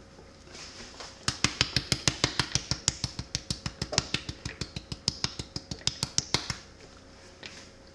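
A spice jar of ground cinnamon shaken in quick strokes over a pot, giving a rapid run of sharp clicks, about six or seven a second, that starts a little over a second in and stops about a second and a half before the end.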